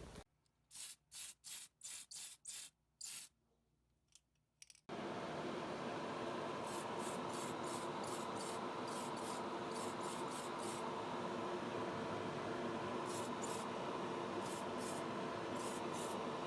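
A cloth with Tamiya finish polishing compound rubbing back and forth over a painted plastic model car body: short, scratchy strokes, about three a second, in runs. A steady hum and hiss comes in about five seconds in and runs under the later strokes.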